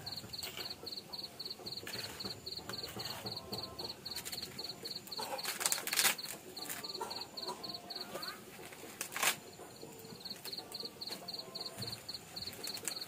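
An insect chirping in an even high-pitched pulse, about five chirps a second, breaking off after about eight seconds and starting again near eleven seconds. A few sharp cracks stand out, the loudest about six seconds in and another near nine seconds.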